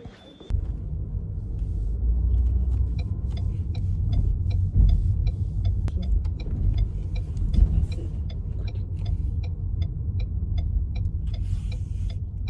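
Low rumble of a car in motion, with a regular ticking about three times a second that starts a couple of seconds in.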